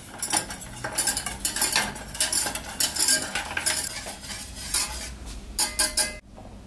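Wire balloon whisk scraping and clinking rapidly against the inside of a stainless steel pot while whisking a thin milky liquid. The strokes stop abruptly near the end.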